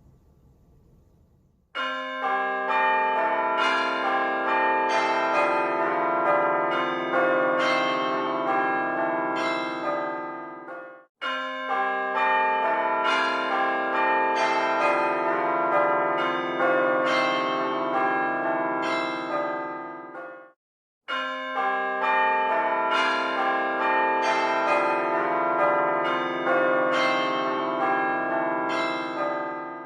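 Church bells ringing, many overlapping strikes, in three stretches of about nine seconds that each cut off abruptly.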